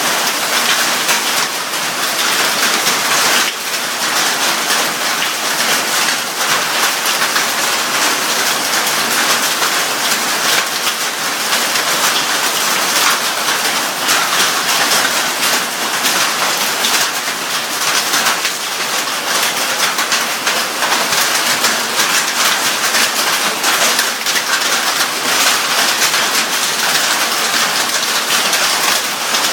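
Heavy rain mixed with hail pelting down steadily: a dense, even hiss peppered with many small sharp hits.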